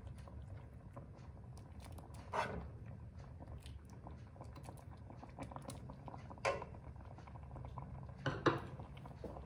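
A metal ladle scooping thick lentil soup from a pot and pouring it into a ceramic soup plate: soft wet slopping, with three sharper clinks of the ladle against the pot and plate.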